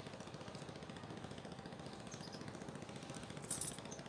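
A boat engine running steadily with an even pulsing beat, and a short hiss about three and a half seconds in.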